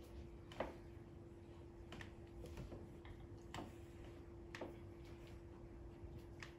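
A kitten biting and pawing a wand toy's tinsel ball, making faint, irregular sharp clicks about once a second over a steady low hum.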